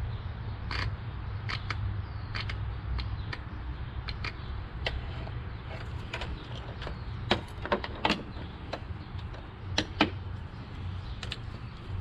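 Intake camshaft timing (VVT) solenoid off a GM 2.4L Ecotec engine clicking each time battery power is touched to it, a run of irregular sharp clicks, the loudest a little past halfway. The clicking shows the solenoid works.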